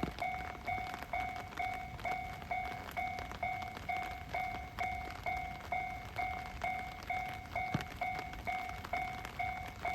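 Japanese railway level-crossing alarm ringing, its electronic bell tone striking evenly about twice a second at a steady pitch. A single faint thump sounds near the end.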